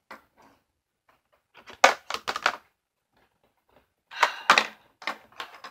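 Plastic clicks and clacks from the action-feature lever of a Spider-Man Super Collider toy playset being pressed and worked by hand, in two short clusters, about two seconds in and again near the end. The mechanism is sticking rather than working properly.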